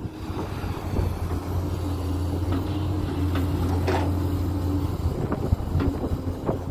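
JCB 210 tracked excavator working: its diesel engine drones steadily under load as the bucket digs into the soil. Several sharp knocks come from the bucket and arm working the dirt, most of them in the second half.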